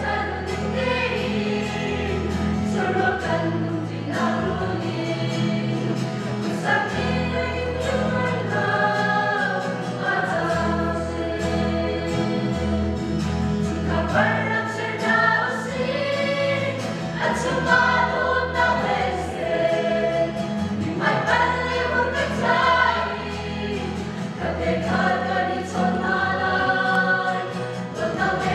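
A church choir of women's and men's voices singing a song together in unison and harmony, over a steady low accompaniment that changes note every few seconds.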